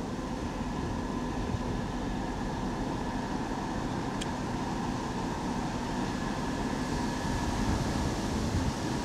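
TEP70BS diesel locomotive's V16 diesel engine running as the locomotive rolls slowly toward the listener in shunting mode: a steady low rumble with a few steady whining tones over it, growing a little louder in the last few seconds.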